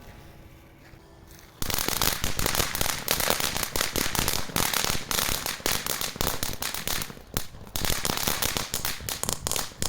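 Ground firework fountain from the Comet Fire Kids XL assortment burning with dense, rapid crackling. It starts suddenly about a second and a half in and keeps going with a few brief dips.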